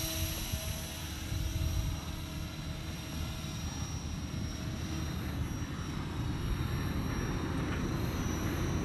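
Walkera V450D03 electric RC helicopter in flight, heard from a distance: a steady high-pitched whine from its motor and rotor, over low rumble from wind on the microphone.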